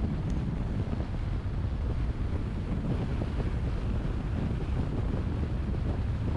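Steady low wind and road rumble from a moving car, with wind buffeting the microphone.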